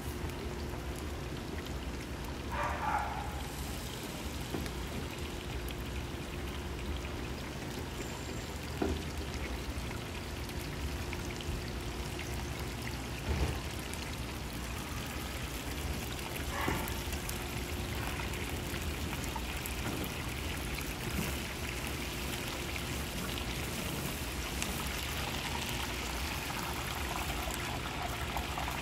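Battered pork pieces deep-frying in a pot of hot oil: a steady sizzle and bubbling, with a few brief knocks spread through it.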